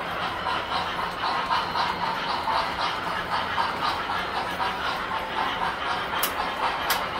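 Tinplate model train running on the layout: a steady motor hum with a fast, even clatter of about five beats a second. Two sharp ticks come near the end.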